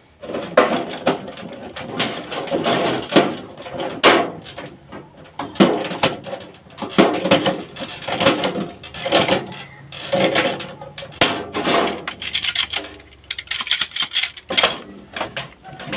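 Sheet-metal gutter being worked by hand: irregular metallic clinks and knocks, roughly one a second, some with a short ring.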